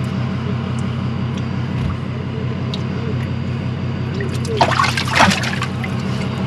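Water sloshing and dripping in a boat's livewell as a hand reaches in among the crappie, with a burst of splashing about five seconds in as the fish are pulled out of the water. A steady low hum runs underneath.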